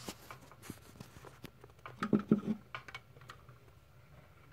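Handling noise from a handheld camera: scattered light taps and rustles, with a short louder cluster of tapping about two seconds in.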